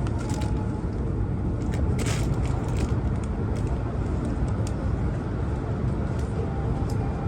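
Steady low rumble of an E2 series Shinkansen standing at the platform just before departure, with a brief hiss about two seconds in.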